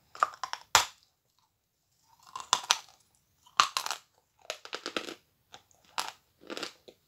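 A large chunk of Akbulak chalk being bitten and chewed: a sharp crack under a second in as a piece breaks off, then bouts of dry crunching as it is chewed.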